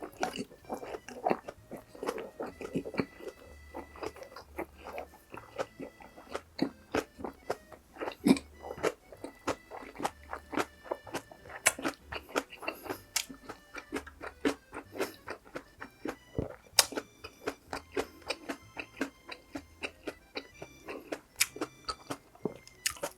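Close-miked chewing of spicy cheese dakgalbi (stir-fried chicken), a dense run of short mouth clicks and crunches several times a second. Quiet background music plays underneath.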